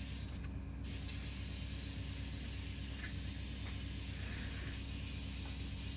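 Steady hiss with a low hum underneath, with no distinct event.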